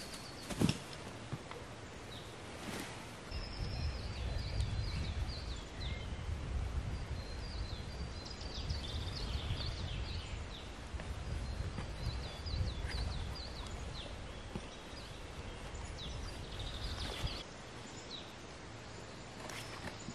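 Small birds chirping in short repeated phrases, over a low rumble through most of the middle. A sharp knock about a second in, and rustling as a sheepskin and a tarp are handled over dry leaves.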